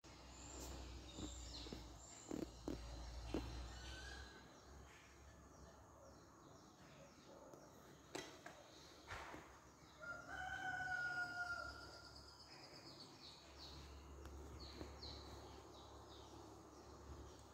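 Faint outdoor ambience: a rooster crows once, a held call about ten seconds in, while small birds chirp. A few sharp knocks sound about two to three seconds in and again around eight seconds.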